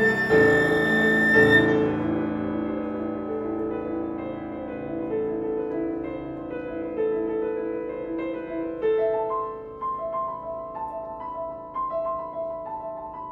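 Flute and piano playing a classical piece. The flute holds a long high note that ends about a second and a half in, then the piano continues alone with ringing chords that fade. Near the end the piano plays a repeated two-note figure in the upper register, getting quieter.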